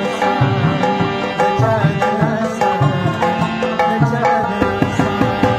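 Harmonium playing a melody, with hand drums keeping a steady rhythm beneath it: an instrumental passage of Pashto ghazal music.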